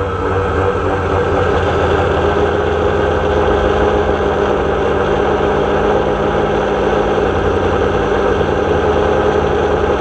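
DJI Phantom quadcopter's electric motors and propellers running steadily in flight, heard from the camera on board: an even hum of several held pitches over a rushing haze.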